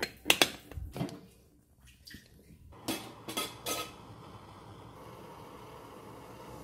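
Metal stovetop moka pot being handled: a quick cluster of sharp metallic clinks as the pot is screwed together, another about a second in, then three knocks around three seconds in as it is set on a camping gas burner. A faint steady hiss follows.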